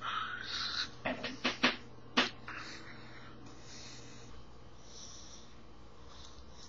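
Breathy hissing, then four sharp slaps of hands striking together during sign language. After that only a steady faint room hum.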